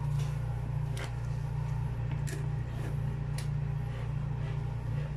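A steady low hum, with a few faint clicks or taps.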